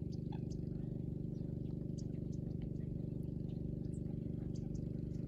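A motor running steadily: a low, even droning hum with a fast regular pulse. Faint scattered ticks sound over it.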